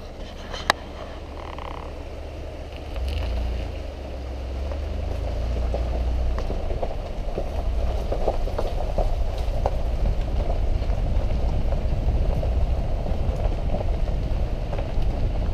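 Truck rolling slowly along a rough dirt track, heard from inside the cab: a steady low engine and tyre rumble with a crackling rush and a few sharp clicks, growing louder about four seconds in.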